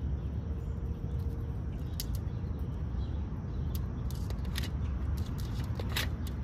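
Outdoor ambience: a steady low rumble with scattered sharp clicks and rustles, a few stronger clicks about two seconds in and near the end.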